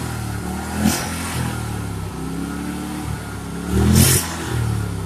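Riding lawn mower's small engine running while stuck in mud, revving up briefly about a second in and again around four seconds.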